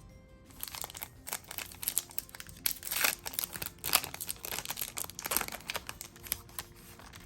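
Wrapper of a Yu-Gi-Oh Maximum Gold booster pack crinkling and tearing as it is opened by hand, a run of crackles starting about half a second in.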